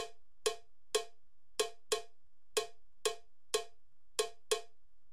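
Solo hand percussion, cowbell-like, struck in a sparse uneven rhythm of about two short hits a second, often in pairs, each hit ringing only briefly.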